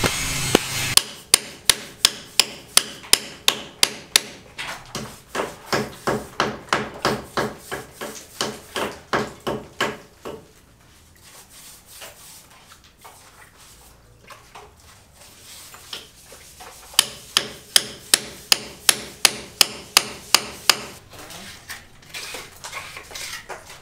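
Hammer blows struck in a fast, steady rhythm of about three a second. There are two runs, with a quieter stretch of scattered knocks between them.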